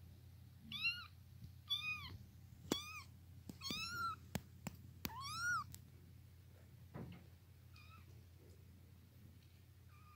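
Newborn kittens mewing: short, high-pitched calls that rise and fall, about six in quick succession and then a few fainter ones near the end, with a few sharp clicks among them.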